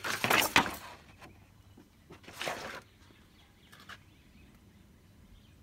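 Short bursts of rustling and handling noise, the loudest at the start and a second one about two and a half seconds in, with a faint click near four seconds, then near quiet.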